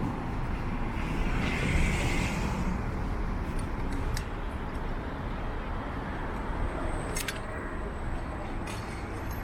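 City street traffic under steady low wind rumble on the microphone; a vehicle passes with a swelling hiss about two seconds in, and two short clicks come near the end.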